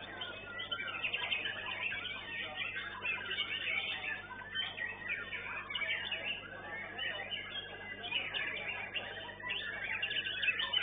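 White-rumped shamas (murai batu) singing together, a dense, unbroken tangle of quick whistles and chirps from several competing birds. A steady low hum lies underneath.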